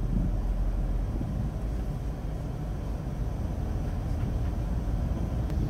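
Steady low rumble of a tour coach driving along, heard from inside the passenger cabin.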